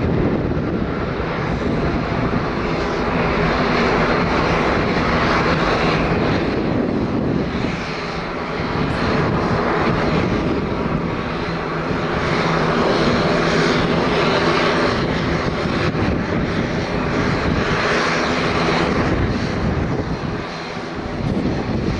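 Boeing 777-300ER's twin GE90-115B turbofan engines at takeoff power: a loud, steady jet noise with a low hum under it, easing off briefly twice.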